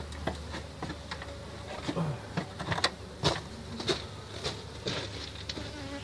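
Honeybees buzzing around an opened hive cavity, with single bees passing close in brief humming sweeps. An irregular run of sharp clicks comes through as well, the loudest about three seconds in.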